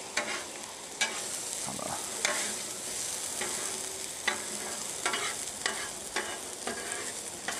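Diced vegetable hash and bacon sizzling in oil on a Blackstone flat-top steel griddle, with metal spatulas scraping and tapping on the griddle surface about ten times as the vegetables are tossed.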